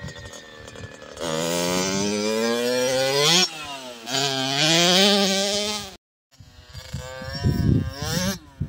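Kawasaki KX65's 65cc two-stroke single-cylinder engine revving as the dirt bike accelerates, its pitch climbing steadily, dropping briefly, then climbing again. After a short break the engine is heard fainter and rougher.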